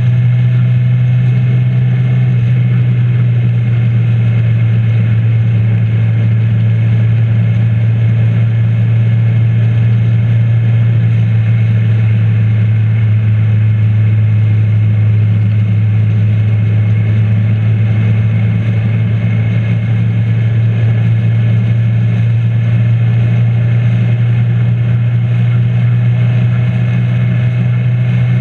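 Motorcycle riding at a steady cruising speed: the engine's constant low drone mixed with wind and road noise on the bike-mounted microphone, with no change in pitch.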